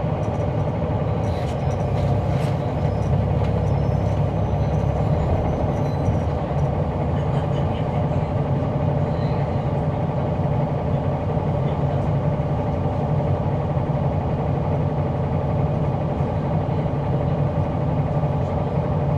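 Caterpillar C9 ACERT diesel engine of a 2004 Neoplan AN459 articulated transit bus running steadily, heard from inside the bus.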